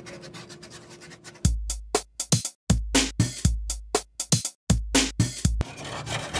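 A short electronic music sting starting about a second and a half in: deep bass notes under quick, sharp drum hits, in four phrases separated by abrupt silences, lasting about four seconds.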